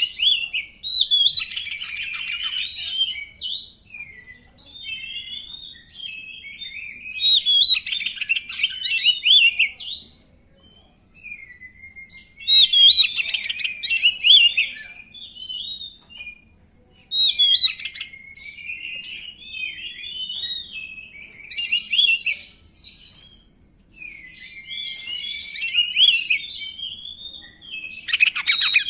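Oriental magpie-robin (kacer) singing: repeated phrases of varied whistles and rapid trills, each lasting about two to three seconds, with short pauses between them.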